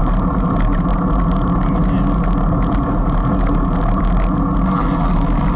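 Steady wind buffeting on the microphone of a camera riding along on a road bicycle at about 23 km/h, mixed with the rumble of the tyres on asphalt. It is a loud, even rush, heaviest in the low end.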